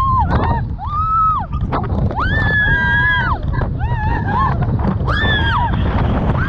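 Banana-boat riders shrieking and screaming while being towed at speed: a string of short high cries that rise and fall, from several voices, with one long held scream a little past the middle. Under the screams is a steady rumble of wind on the microphone and spray.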